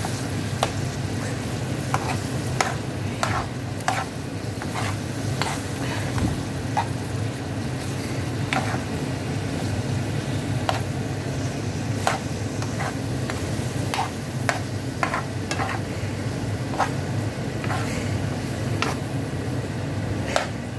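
Metal spoon stirring mixed vegetables in a non-stick frying pan, scraping and clinking against the pan every second or so, over a steady sizzle of the vegetables cooking in their masala. A steady low hum runs underneath.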